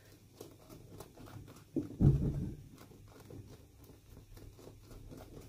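Small clicks and taps of fingers pressing and rubbing a glued shoe shank down onto the leather insole of a welted shoe, with one short, louder low sound about two seconds in.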